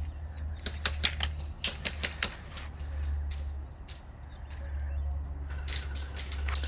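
A run of sharp, irregular clicks and taps, several in quick succession about a second in and again near the end, over a low steady rumble.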